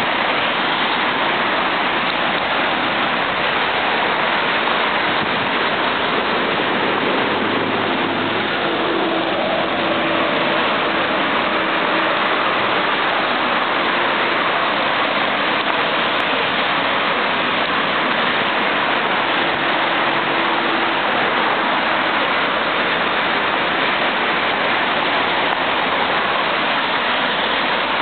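Steady road traffic on a busy urban highway: a dense, even hiss of tyres and engines from passing cars, with the hum of a passing vehicle rising briefly twice.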